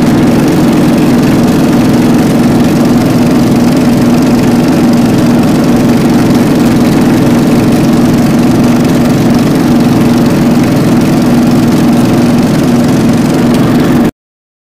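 Wooden fishing boat's engine running steadily and loudly under way, an even drone with no change in speed. It cuts off suddenly near the end.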